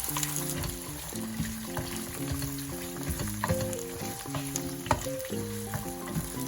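Food sizzling as it fries in a pan, a steady hiss with a few sharp clicks of a utensil, under background music with a simple stepped melody.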